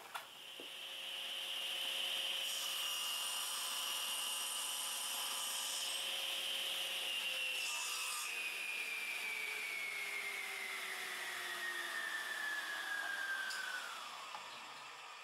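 Table saw switched on and running, its blade giving a steady high whine, with the hiss of a small wood workpiece being cut on a sled. The saw is then switched off and the blade coasts down, the whine falling slowly in pitch for several seconds until it stops near the end.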